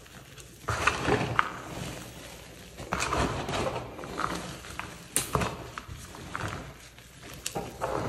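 Gloved hands squeezing and pressing crumbled reformed chalk powder: soft, powdery crunching in several short bursts, with a few sharper crackles.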